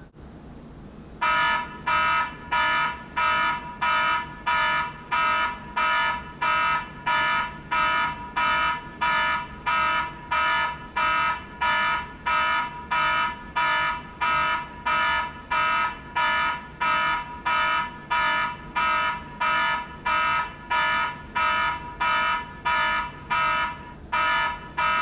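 Electronic wake-up alarm beeping in an even repeating pattern, about three beeps every two seconds, starting about a second in, with one short break near the end.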